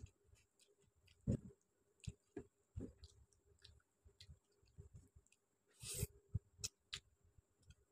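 Close-up eating by hand: soft clicks and wet squishes of fingers mixing rice and chicken curry, chewing and lip smacks. A louder wet mouth sound comes about six seconds in as a handful goes into the mouth.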